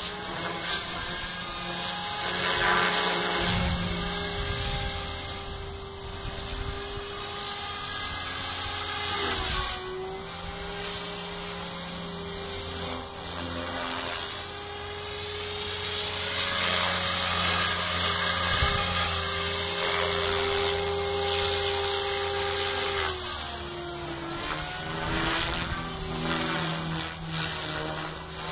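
Radio-controlled model helicopter flying: a steady rotor-and-motor drone with a high whine. Its pitch dips briefly about ten seconds in and again near twenty-four seconds, and it grows louder twice as it passes nearer.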